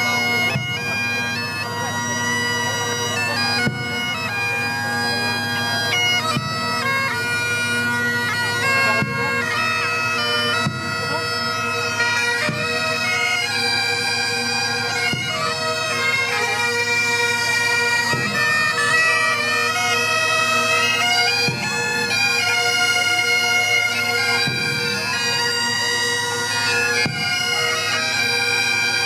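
Several bagpipes playing a tune together over their steady, unbroken drones.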